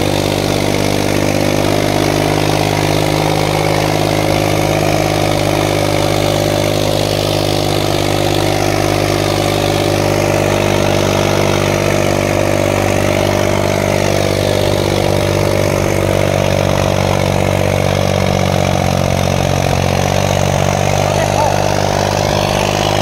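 Farmtrac 60 tractor's three-cylinder diesel engine running loud and steady at one even pitch, labouring under heavy load as it drags two harrows through the soil.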